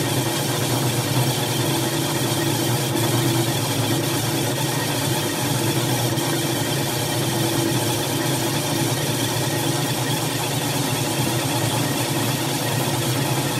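Drill press running steadily, spinning an abrasive wheel against a cast-iron engine piston: a constant motor hum with a grinding hiss as the piston is cleaned up.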